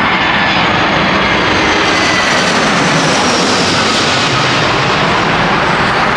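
Jet airliner's engines passing low overhead on approach to land, a loud steady rush of jet noise with a thin whine falling in pitch as it goes by.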